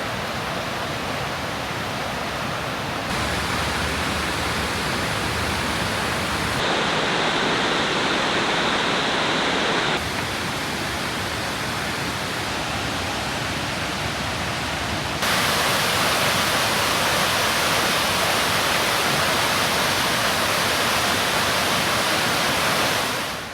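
Steady rush of water from a large waterfall on the Genesee River, heard across several spliced takes. The loudness and brightness change abruptly about 3, 7, 10 and 15 seconds in, and the sound fades down just before the end.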